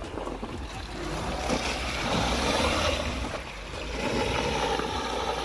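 Honda Civic sedan driving through deep, waterlogged mud ruts: the engine runs under a wash of tyres churning and splashing through wet mud and water, swelling twice.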